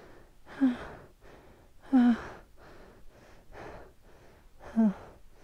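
A man breathing hard and out of breath, with three loud gasping exhalations that fall in pitch, about half a second, two seconds and nearly five seconds in, and fainter breaths between. He is winded from exertion in the thin air of a very high mountain pass.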